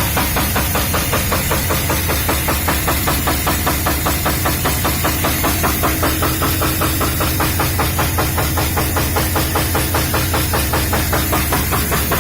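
UMZ-421 four-cylinder petrol engine of a UAZ running just after starting, with a steady rapid knocking in time with the engine. The knock is the sign of an internal engine fault.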